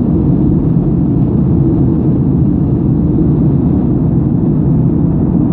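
Steady cabin drone of a Boeing 737-600 airliner in flight, heard from a window seat: CFM56 engine and airflow noise, deep and even with no change.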